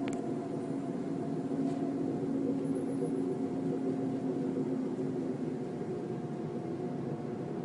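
Unexplained low droning hum heard in the sky, a steady sound with a few held tones over a hiss: one of the 'strange sky sounds' that its uploader presents as the apocalyptic trumpet (sangkakala).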